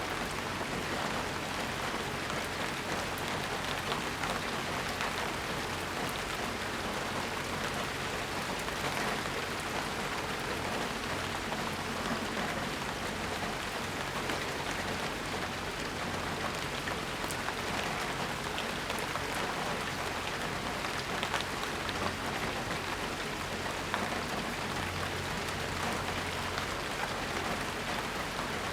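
Steady rain falling, with many individual drops ticking against hard surfaces.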